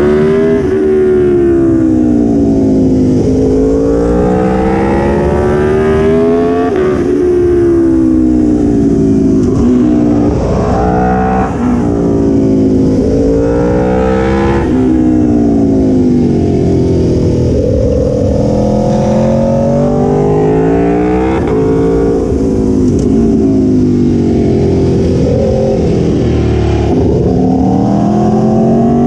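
Aprilia Tuono 1100 Factory's V4 engine under hard riding, the revs climbing and falling over and over as the throttle is opened and rolled off through a run of bends, with several sudden drops in pitch.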